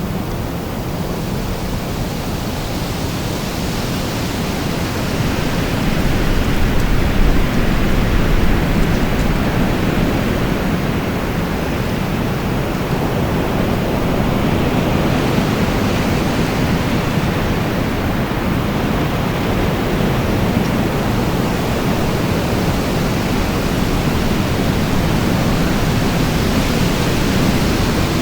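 Strong wind blowing in a loud continuous rush, swelling a little about six seconds in and then holding steady.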